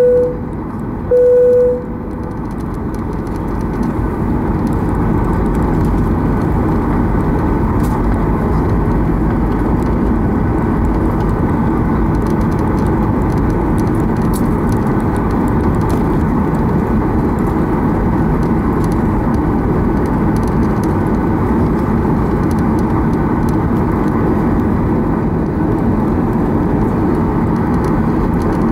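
A Boeing 737-800's CFM56 turbofan engines heard from inside the cabin while taxiing: a steady rumble with a faint whine that grows louder over the first few seconds, then holds steady. Right at the start, two short chime tones at the same pitch sound about a second apart.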